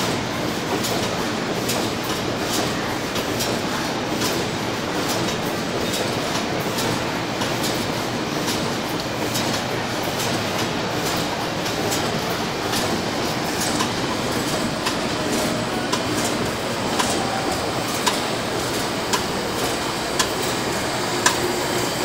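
Automatic wire cutting and crimping machine running: a steady mechanical clatter with rapid, irregular clicking from its cutting and crimping stations, a few sharper clicks standing out in the last few seconds.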